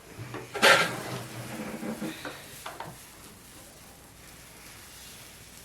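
A loud clatter of kitchen utensils and dishes under a second in, with a few lighter knocks, then a faint steady sizzle of pancake batter cooking on a hot griddle.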